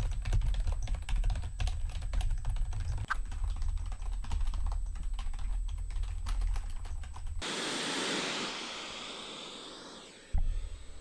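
Computer keyboard typing: a fast run of key clicks over a steady low rumble. About two-thirds of the way in, the typing stops and a loud rushing hiss starts abruptly, then fades away over a few seconds.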